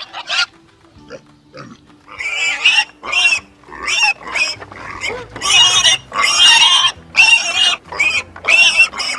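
A rapid series of loud, high-pitched animal calls, each under a second, starting about two seconds in, over faint background music.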